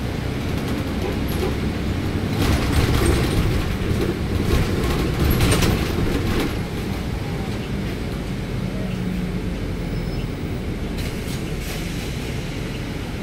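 Interior noise of a city bus: a steady low engine rumble, with a louder stretch of rattling and knocks from about two to six seconds in.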